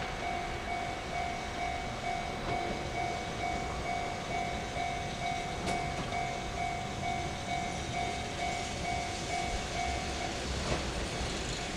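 Japanese level-crossing warning bell ringing in an even electronic ding-ding, a little over two strokes a second, then stopping about ten seconds in, with a low rumble of rail and road traffic beneath.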